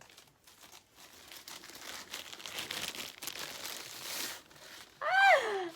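Camera packaging crinkling and rustling as it is unwrapped, for about four seconds. Near the end a short voice exclamation falls in pitch.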